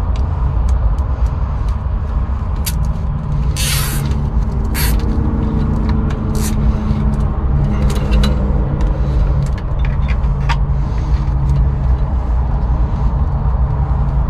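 Small clicks and rustles of wiring and wire connectors being handled and joined, with a short rasp about four seconds in. Under them is a steady low rumble.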